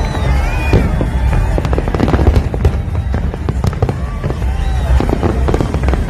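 Aerial fireworks display: many shells bursting and crackling in quick succession over a steady low rumble.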